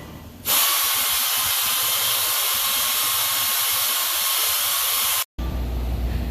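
A loud, steady hiss that starts about half a second in and cuts off abruptly about five seconds in.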